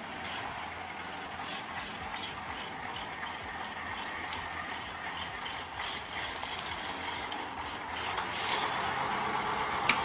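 Loaded KAMAZ logging truck moving over a rough sandy track, its body and log load rattling and clanking, growing steadily louder as it comes closer, with one sharp click just before the end.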